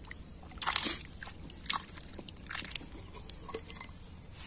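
Hands rummaging through wet mud, grass and water in a bamboo basket: a handful of short wet rustles and splashes, the loudest about a second in.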